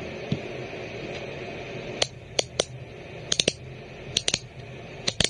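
Sharp metallic clicks of a metal EDC fidget toy being snapped back and forth, about a dozen irregular clicks, some in quick runs of two or three, over a steady hiss.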